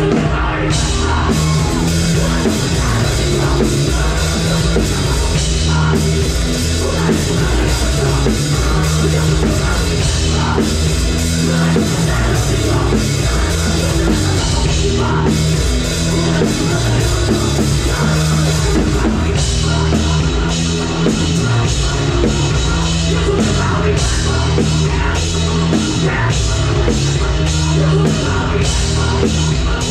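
A heavy rock band playing live: distorted electric guitar over a pounding drum kit and bass.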